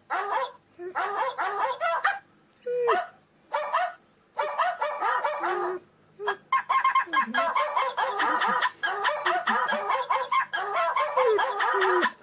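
Dog yelping and whining in short separate bursts of gliding, high-pitched calls. About six and a half seconds in, the calls turn into a dense, nearly unbroken run of yelps.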